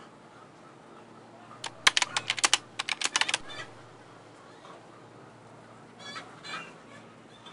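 A hen shut into a plastic bucket: a rapid burst of sharp clattering, about a dozen strikes over a second and a half, then a couple of short clucks near the end.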